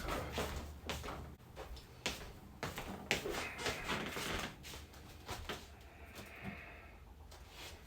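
Scattered knocks, clicks and rustles of leftover food containers being handled and taken out of a refrigerator, busiest in the first five seconds, then quieter.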